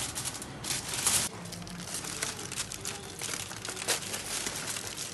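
Aluminium foil crinkling as hands handle a foil-covered tray and pull the foil open: an irregular run of crackles, with sharper crackles about a second in and again near four seconds.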